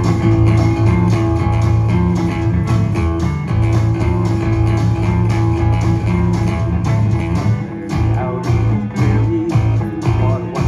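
Live rock band playing an instrumental passage: fast strummed guitar with a steady bass line.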